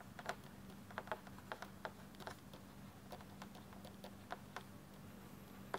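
Faint, irregular clicks and taps of a stylus tip writing on a tablet surface, about two or three a second, over a faint steady hum.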